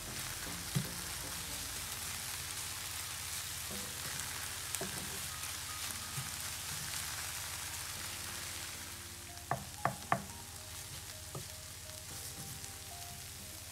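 Spinach, onion and green pepper sizzling in hot oil in a nonstick skillet while a wooden spatula stirs. The sizzle eases a little past the middle, and the spatula knocks against the pan once near the start and then in a quick run of three about two-thirds of the way through.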